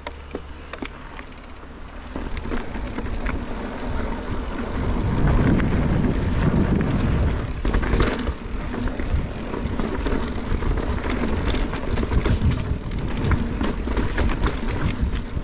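Mountain bike riding a dirt singletrack trail: wind rushing over the microphone and tyres rolling, with scattered clicks and rattles from the bike, louder after about two seconds as speed picks up.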